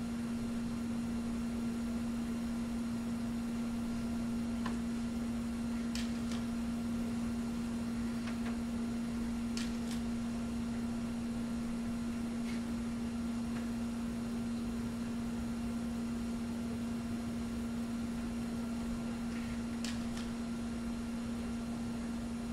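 A steady electrical hum on one low tone, with background hiss and a few faint clicks.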